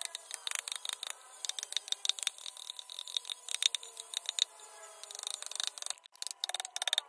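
Hand carving tools cutting into wood, making rapid, irregular sharp clicks and taps several times a second, with a brief lull about six seconds in.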